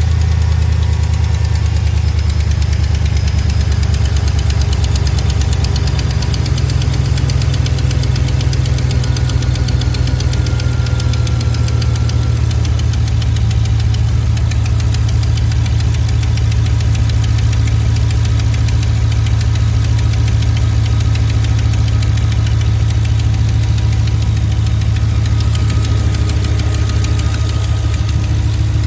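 Engine running at a steady speed with a rapid, even ticking riding on it, which the owner suspects may be a lifter tick.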